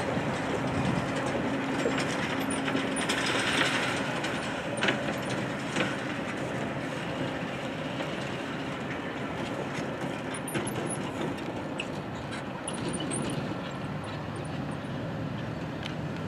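Intermodal freight train cars rolling past close by: a steady rumble and rattle of steel wheels on rail with occasional clanks, easing a little in the second half.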